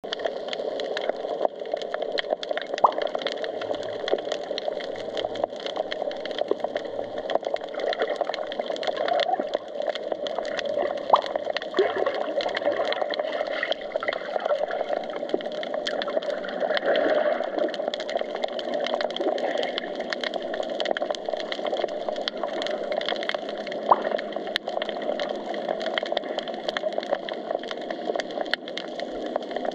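Underwater ambience picked up by a camera on the seabed: a steady water hiss with a constant crackle of many small clicks.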